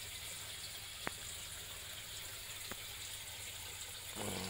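Faint steady running water from the hydroponic pipe system, with two light clicks and a brief louder noise near the end.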